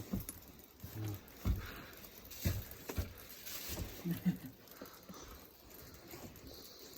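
Boots crunching and thumping in snow: a handful of irregular soft thuds and crunches, about a second apart.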